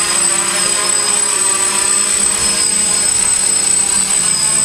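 DJI F550 hexacopter's six brushless motors and propellers whining steadily as it hovers low. The pitch shifts up or down in small steps a few times as the motors adjust to hold it in place.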